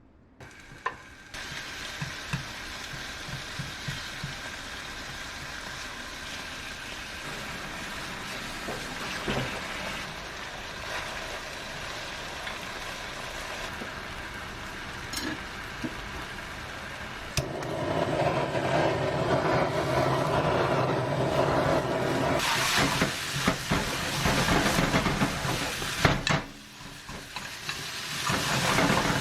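Soy-marinated pork sizzling as it is stir-fried in a frying pan, with stirring. The sizzle steps up louder a little past halfway.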